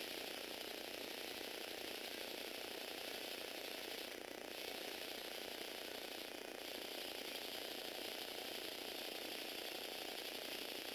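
Lego Technic four-wheel-drive car's small electric motor turning its plastic gear train and chain, a dense gear rattle with a higher whine on top. The whine drops out briefly twice, about four and six seconds in.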